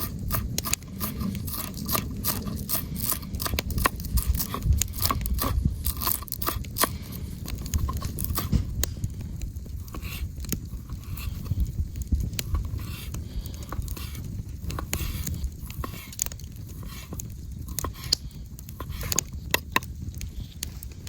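Campfire cooking: many sharp crackles and clicks with scraping, over a steady low rumble.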